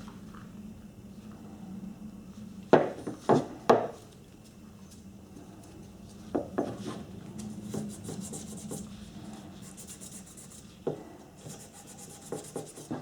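Hand workshop work on a samovar: rubbing and filing strokes, with sharp knocks from parts or tools being set down or struck. Three knocks in quick succession about three seconds in are the loudest, and a run of quicker scraping strokes comes in the second half.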